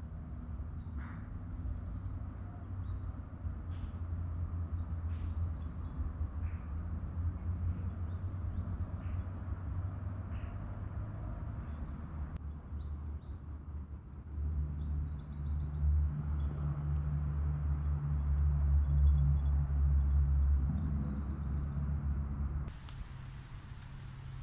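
Small birds chirping, short high calls repeated again and again, over a low steady hum that grows louder about halfway through and drops near the end.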